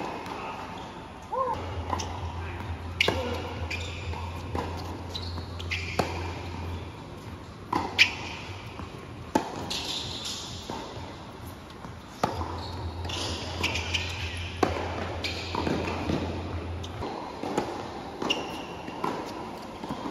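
Tennis ball struck by rackets and bouncing on a hard court: sharp, irregular hits a second or more apart, through rallies and the short breaks between points. A low steady hum comes in twice.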